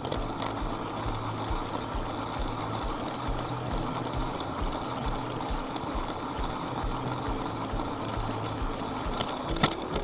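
LEGO train motor running and its wheels rolling over plastic track, with a steady hum and a regular clicking of the wheels over the track joints. One sharper click comes near the end.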